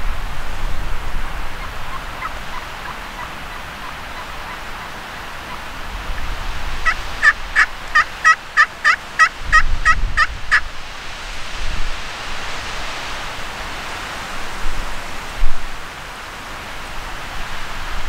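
A run of about a dozen evenly spaced turkey yelps, about three a second, lasting some three and a half seconds, with a few faint calls before it. Strong wind buffets the microphone throughout, with a hard gust thump near the end.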